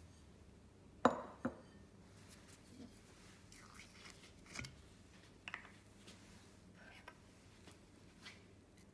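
A few faint, sharp clicks and light knocks of small kitchen handling, the sharpest about a second in, over quiet room tone.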